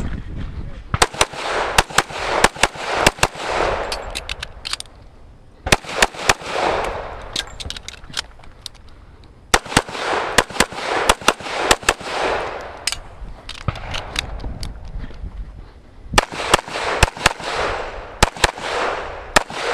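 Rapid strings of .45 ACP pistol shots from an STI Trojan single-stack 1911, fired in quick bursts of several shots each, with echo after every string. There are four main strings, separated by pauses of about a second.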